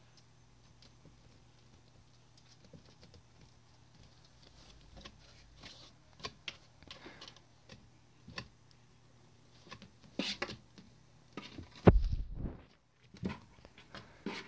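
Young kittens' paws scrabbling and pattering on paper, plastic sheeting and cardboard: scattered light taps and rustles, busier in the second half, with a loud thump near the end.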